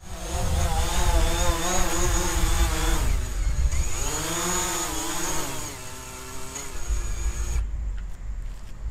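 DJI Mavic Pro quadcopter's motors and propellers whining as it hovers, the pitch wavering, dipping about three seconds in and rising again. The whine cuts off suddenly about seven and a half seconds in as the motors stop.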